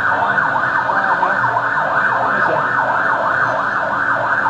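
Several electronic sirens sounding together and overlapping, each sweeping rapidly up and down in pitch several times a second.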